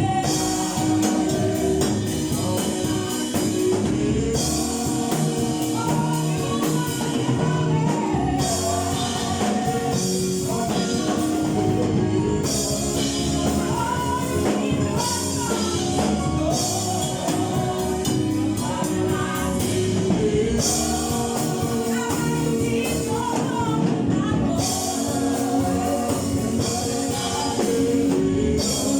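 Church choir singing a gospel song with band accompaniment and a steady drum beat.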